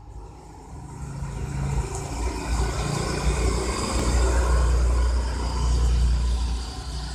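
Wind gusting, a heavy low rumble that builds over the first few seconds, is strongest in the middle and eases near the end.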